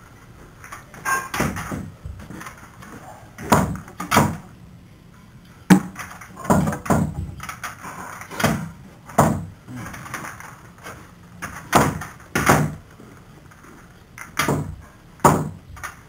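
A series of short thumps and knocks, mostly in pairs a little under a second apart with pauses between, and one sharp click about six seconds in.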